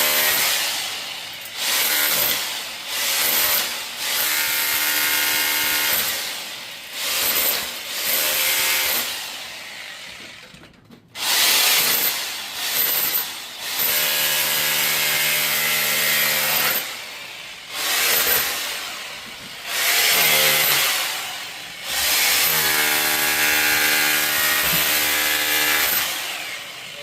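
Handheld power tool cutting or drilling into material, run in repeated bursts of one to four seconds with short pauses between. The motor whine rises and falls as the trigger is squeezed and let go.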